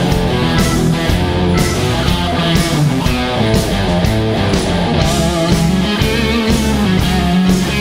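Progressive rock band playing live: electric guitar and keyboards over a steady drum beat.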